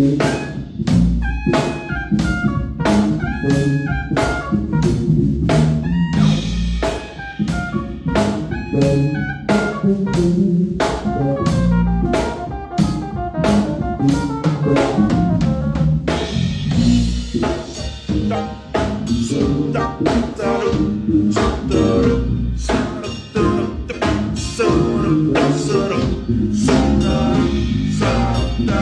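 A band playing a jazzy groove at a sound check: a drum kit with snare, rimshot and bass-drum hits keeping a busy steady beat under pitched instrument lines.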